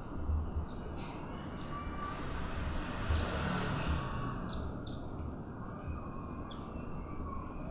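Small birds chirping in short high calls, several times, over a steady low rumble.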